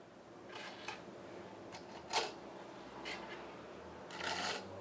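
Small steel coil springs from a CPU waterblock mounting kit being handled and slipped over the threaded mounting studs, giving a few light metallic clicks and rattles, with a sharp click a little over two seconds in and a longer rattle near the end.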